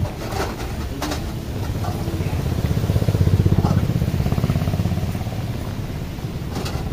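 A motorbike passes close by on a rain-wet street, its engine note swelling to loudest about three seconds in and then fading away. A few sharp clicks come near the start and the end.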